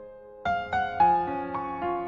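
Piano music: a held chord fading, then fresh notes struck about half a second in and again about a second in.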